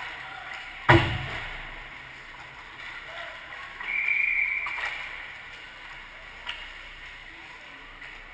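Ice hockey game sounds on the rink: the steady scrape and hiss of skates on ice, a single loud knock about a second in, and a brief high hiss about four seconds in.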